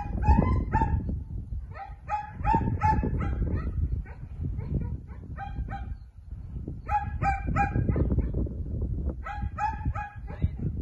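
A dog barking in repeated quick runs of three or four barks, with pauses of a second or two between runs. A low wind rumble on the microphone sits underneath.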